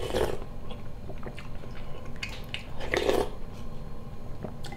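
A man slurping borscht off a wooden spoon, twice: at the start and about three seconds in, with small chewing and mouth clicks in between.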